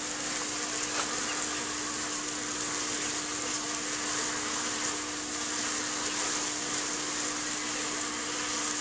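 Steady drone of a package of honeybees buzzing, an even hum with one constant low tone and a hiss above it.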